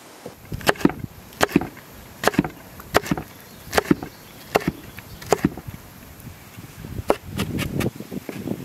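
Kitchen knife chopping bell peppers on a wooden cutting board: sharp knocks of the blade hitting the board about every three-quarters of a second, then a quicker run of chops near the end.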